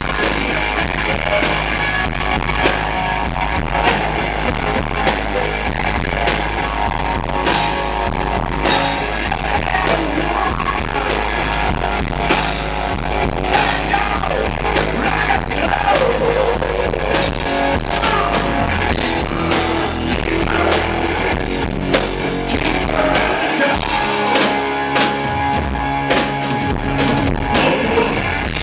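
Live rock band playing loud: electric guitars over a drum kit. It is recorded right at the stage, so the kick drum and low end overload the microphone and distort.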